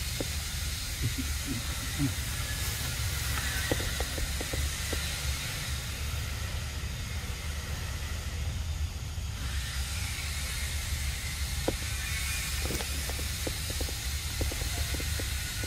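Steady outdoor background noise: a constant low rumble under an even high hiss, with a few faint short clicks and chirps scattered through it.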